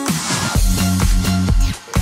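Background electronic dance music with a steady kick-drum beat under held synth chords, opening with a cymbal-like wash.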